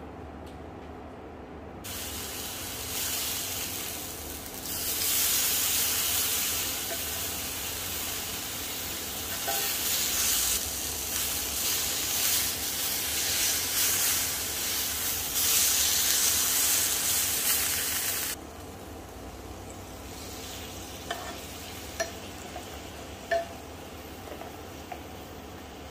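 Beef steak sizzling as it sears in a cast iron skillet: a loud frying hiss that starts about two seconds in and cuts off abruptly some sixteen seconds later. A few light clicks of a metal fork against the pan follow near the end.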